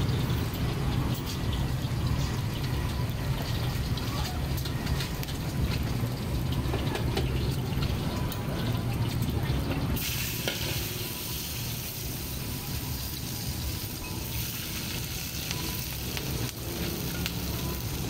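Shrimp sizzling in hot oil in a steel wok, stirred with metal utensils that click and scrape against the pan. About halfway through, the hiss gets brighter.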